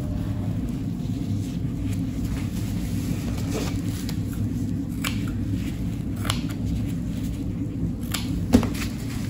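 Surgical dressing on a foot being unwrapped and cut away by hand: scattered rustles and a few sharp clicks, the loudest a scissor snip near the end, over a steady low hum.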